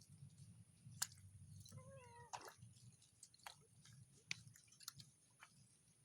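A domestic cat meows once, a short call about two seconds in. A few sharp clicks come before and after it.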